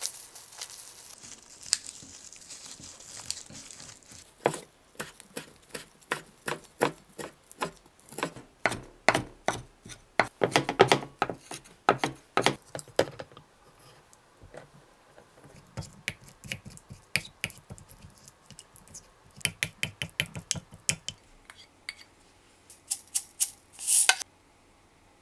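Plastic wrap crinkling around a rice ball, then a kitchen knife mincing shiso leaves on a wooden cutting board in quick, even strokes, about three a second, with a second run of chopping later on.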